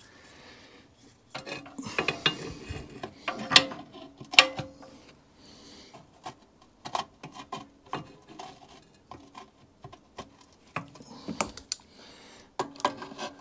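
Hand tools and metal parts of a vintage reel lawnmower clinking and scraping as a spanner is worked in behind a nut: irregular metal-on-metal clicks and knocks, with two sharper clinks about three and a half and four and a half seconds in.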